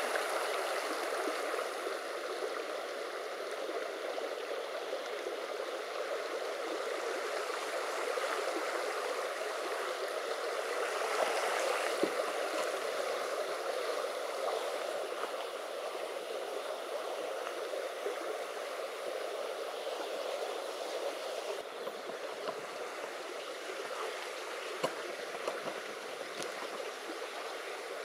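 Small creek flowing, a steady rush of running water.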